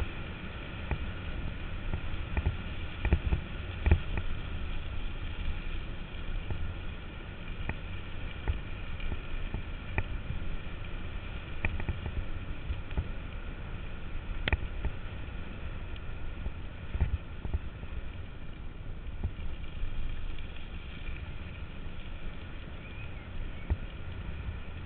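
Bicycle rolling over a gravel path, its tyres and frame giving a steady rumble with irregular knocks and rattles from bumps, and wind on the handlebar-mounted camera's microphone.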